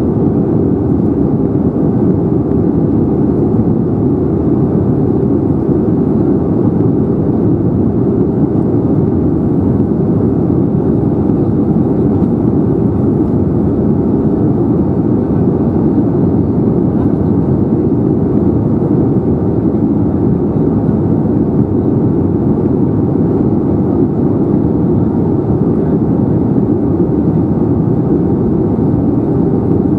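Steady cabin noise inside an Airbus A320neo during descent: an even, low rumble of airflow and its Pratt & Whitney PW1100G geared turbofan engines, heard from a window seat over the wing.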